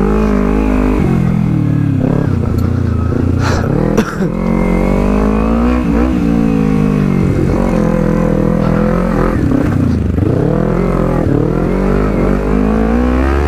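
Motorcycle engine revving up and down again and again under changing throttle while climbing a steep dirt trail, with a short sharp knock about four seconds in.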